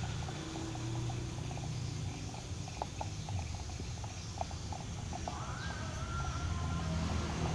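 Car engine idling during a combustion-chamber carbon cleaning, a steady low rumble with scattered light clicks; about five seconds in a steady high-pitched whine joins it.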